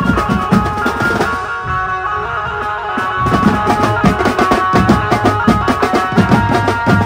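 Mumbai street banjo party band playing: fast, dense drumming on snare and tom drums over an amplified melody. The drums drop out a little over a second in while the melody carries on, then crash back in about two seconds later.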